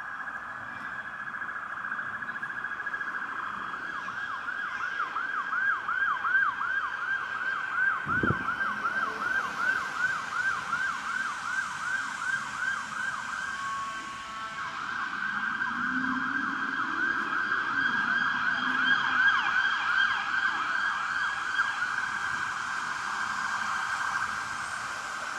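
Emergency vehicle siren sounding, first as a slow wail and then as a fast yelp, about four sweeps a second, breaking off briefly and resuming before fading near the end. A single sharp knock about eight seconds in.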